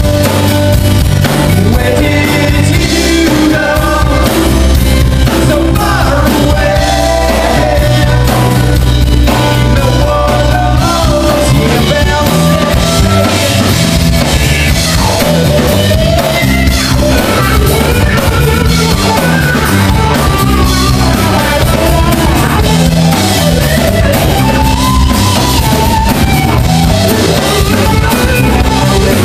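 Live rock band playing loud and amplified: acoustic and electric guitars, bass guitar and drum kit.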